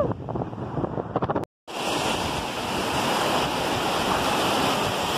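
Sea surf breaking, with wind buffeting the microphone; the sound drops out briefly about a second and a half in, then the surf runs on as a steady wash.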